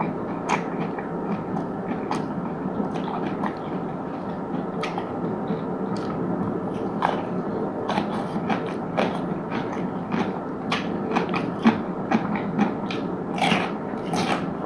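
Close-miked eating: chewing with many short, sharp crunches, which come thicker in the last few seconds, over a steady background noise.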